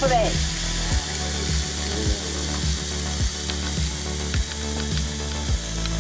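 Red bell pepper strips sizzling on a hot electric contact grill plate, with a steady hiss and a few light clicks from metal tongs. Underneath runs a regular low beat, about one and a half beats a second.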